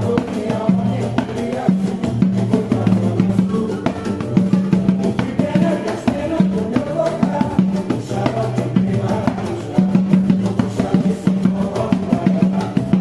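Music playing: busy percussion over a bass line of held low notes.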